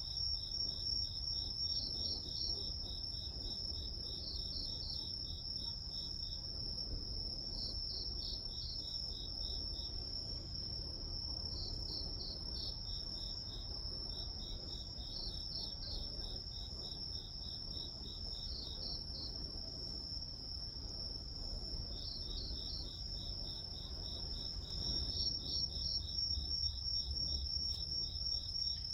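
Grass insects chirping: one steady high trill with bursts of fast pulsed chirps repeating over it every second or two, over a faint low rumble.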